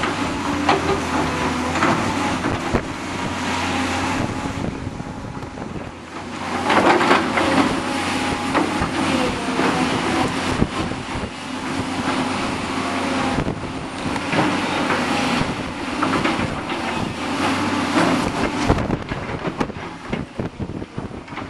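Volvo crawler excavator's diesel engine running steadily as it works its bucket through loose muck, under gusty wind crackling on the microphone.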